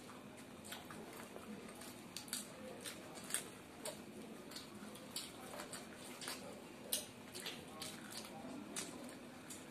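Close-up eating sounds of two people chewing soft food with their hands: irregular wet mouth clicks and lip smacks, with soft squishing as fingers pull apart puffed luchi bread and poached egg.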